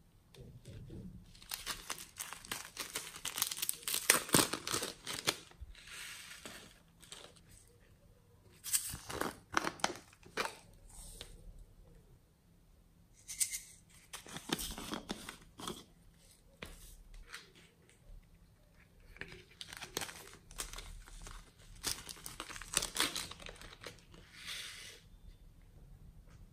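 Hands squeezing and pulling apart a soft squishy toy and a lump of pink clay, giving crackling, tearing sounds in four irregular bursts with short quiet gaps between, the loudest about four seconds in.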